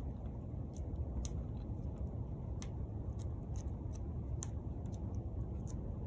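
Faint sharp clicks at irregular intervals, roughly two a second, over a steady low rumble: hand pruning shears snipping dormant grapevine canes.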